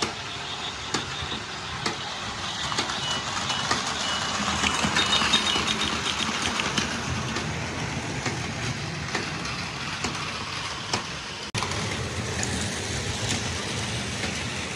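Battery-powered Plarail toy trains running on plastic track: a steady motor whir with scattered clicks and rattles, briefly cut off about eleven and a half seconds in.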